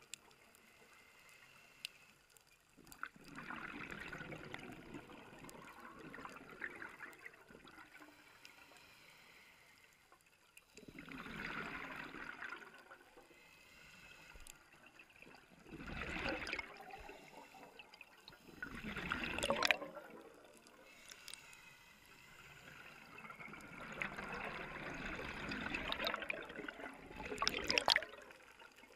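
Scuba diver's regulator breathing heard underwater: rushing bursts of exhaled bubbles every few seconds, with quieter stretches between breaths.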